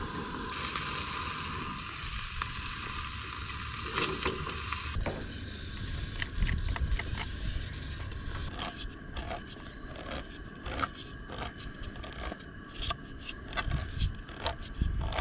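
A metal spoon scraping and tapping as pulled pork is scooped from a plastic tub into a small metal pot: a run of irregular clicks and scrapes. Near the end, a hand can opener starts clicking around a can of baked beans.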